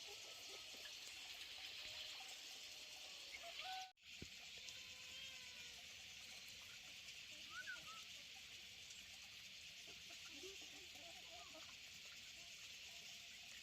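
Quiet rural ambience: a steady hiss with faint, scattered short bird calls, broken by a brief dropout about four seconds in.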